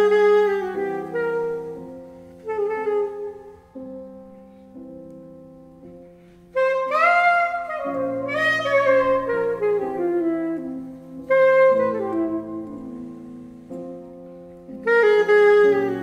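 Saxophone and grand piano playing live jazz: long held saxophone notes over sustained piano chords. The music swells loud about six and a half seconds in and again near the end, with quieter piano-led stretches between.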